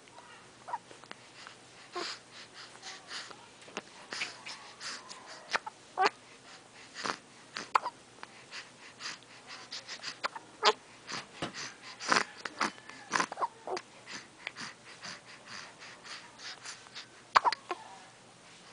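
A fit of repeated sneezing and choking: an irregular run of short, sharp, wheezy snorts, often several a second. The run starts about two seconds in, is loudest around the middle, and stops shortly before the end.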